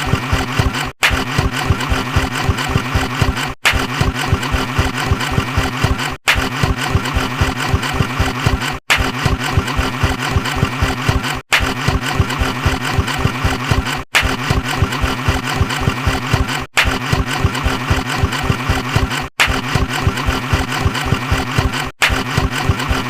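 A motor-vehicle engine sound effect with a rapid low pulsing, the same short clip of about two and a half seconds looping again and again with a brief cut-out between each repeat.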